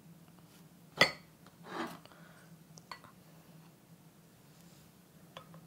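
Serving spoon scooping banana pudding from a glass bowl: one sharp clink about a second in, then a soft scraping squelch and a few faint taps against the dishes.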